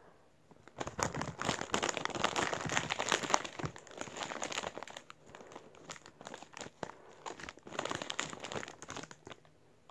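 Plastic Gatorade bottle being handled and squeezed in the hands, crinkling and crackling irregularly, starting about a second in with a short lull near the middle.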